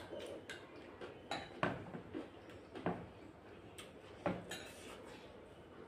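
Eating at a table: a metal spoon clinking against a small glass bowl, and dishes knocking on the tabletop, several separate sharp clicks and knocks over a few seconds.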